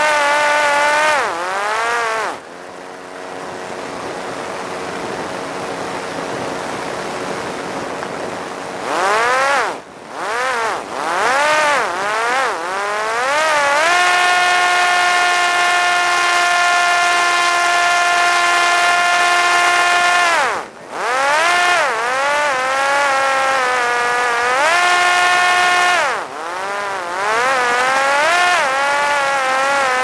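Parrot Disco fixed-wing drone's electric motor and pusher propeller running in flight, heard from a camera mounted on the aircraft. Its pitch rises and falls with the throttle. It drops to a lower, quieter tone for several seconds after about two seconds in, cuts back sharply near ten seconds and again around twenty seconds, and holds a steady high whine for several seconds in between. A rush of air noise lies under it.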